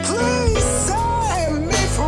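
Music: a slow song with a melody that glides and bends in pitch over steady low sustained notes.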